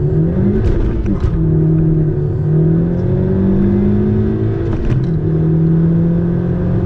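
A turbocharged 1.5-litre four-cylinder Honda Civic, heard from inside the cabin, accelerating through the gears of its six-speed manual. The engine note climbs, drops at an upshift about a second in, climbs slowly again and drops at a second upshift about five seconds in.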